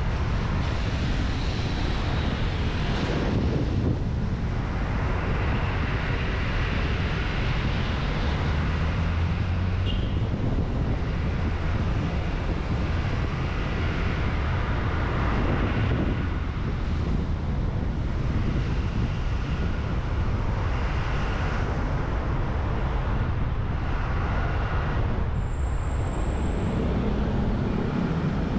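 A car driving on city streets: a steady low rumble of road and engine noise with a wind hiss, and passing traffic. A short, high-pitched whistle sounds near the end.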